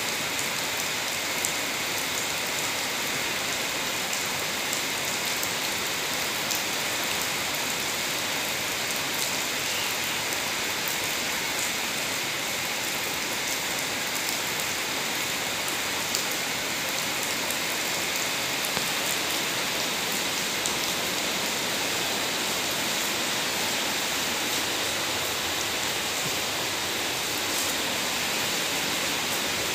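Steady rain falling on wet pavement and plants, an even hiss with scattered small drop ticks.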